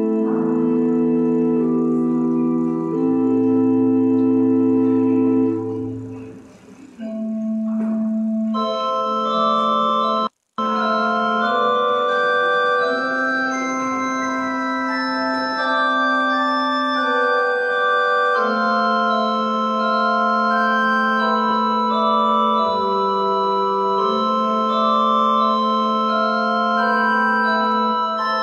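Pipe organ playing slow, sustained chords. One phrase fades out about six seconds in and a new one starts a second later, and the sound cuts out for an instant near the ten-second mark.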